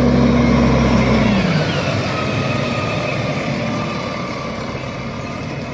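Rear-loading garbage truck's diesel engine running as it drives past. The engine note drops about a second and a half in, then settles into a steady hum with a faint whine.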